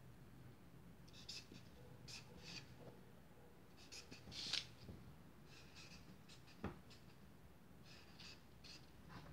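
Felt-tip marker writing on paper: short scratchy strokes in little clusters as each letter is drawn, with one light knock about two-thirds through. A faint steady low hum lies underneath.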